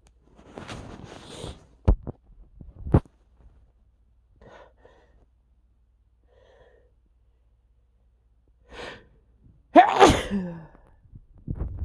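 A man sneezing from bad allergies: breathy gasps and two sharp clicks in the first three seconds, then a quick inhale and one loud voiced sneeze near the end.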